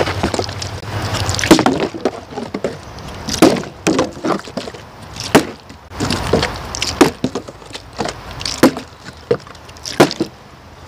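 Plastic 20 oz Powerade bottle, partly filled with water, handled right at the microphone: about a dozen irregular sharp knocks and bumps, with water sloshing inside.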